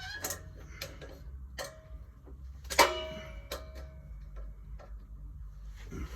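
Metal tool and fitting clicking and clinking against each other, a few separate knocks with one louder clink about three seconds in that rings briefly.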